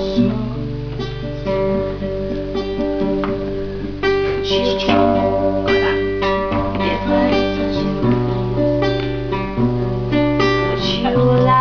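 Acoustic guitar strummed in chords, with the bass note changing every second or so and a voice singing along.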